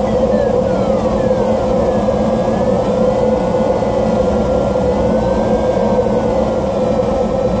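Steady rush of air over the DG1000 glider's canopy and cockpit in flight, with a faint electronic variometer tone gliding slowly up and down in pitch.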